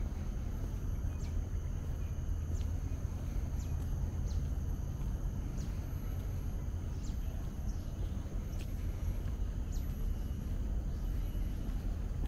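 Outdoor hilltop ambience: a steady low rumble, with a dozen or so brief high bird chirps that slide down in pitch, scattered through it, and a steady thin high whine.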